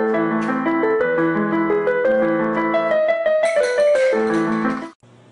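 Piano music: quick notes over held chords, cutting off abruptly near the end, followed by a faint low hum.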